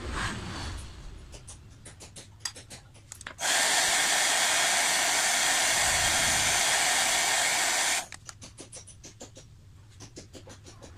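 Hair dryer blowing steadily for about four and a half seconds, switched on a few seconds in and cut off abruptly, heating a phone screen to soften the glue between the LCD and the touchscreen. Light clicks and taps come before and after it.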